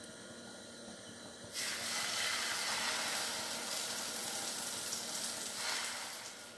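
Beaten egg batter with masala, onion and tomato hitting hot oil in a frying pan and sizzling. The sizzle starts suddenly about a second and a half in and eases off near the end.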